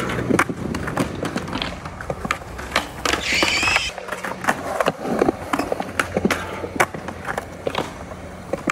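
Skateboard wheels rolling over concrete with a low rumble, broken by many sharp clacks of the board hitting the ground and a metal rail during tricks. A brief high-pitched warbling sound a little after three seconds in.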